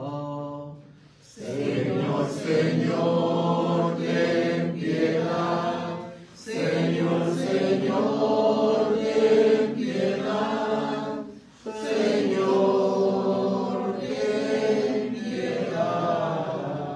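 A group of voices singing a church hymn in long sung phrases, with short breaks for breath about every five seconds.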